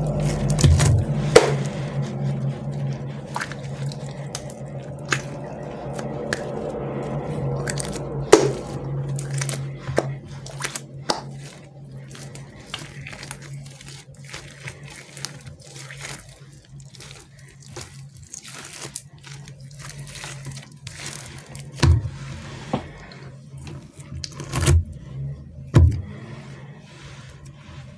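Hands squeezing and kneading a giant cat-shaped taba squishy toy, with many small sticky clicks and crackles from its soft surface. A few heavier soft thumps near the end as the toy is handled on and set down on the table.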